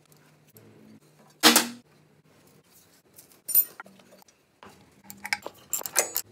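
Hand tools clinking on steel as exhaust manifold nuts are done up: one sharp metallic clank about a second and a half in, another near the middle, and a run of quick wrench clicks near the end.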